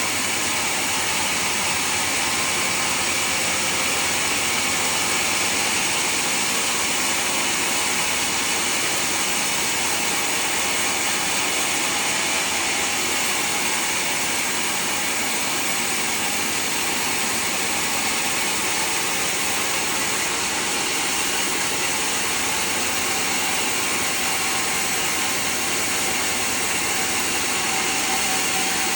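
Sawmill saw running and cutting through a large teak log: a loud, steady noise that holds without a break.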